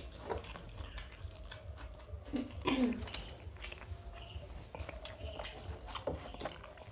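People eating rice by hand: chewing with small wet clicks and the squish of fingers working biryani. A brief voiced sound from one of them comes about two and a half seconds in, over a low steady hum.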